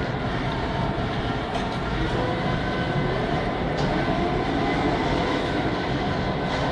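Steady rumble and hiss of an automated transport cart rolling along a smooth tunnel floor, heard from close by while moving, with faint steady whining tones over it.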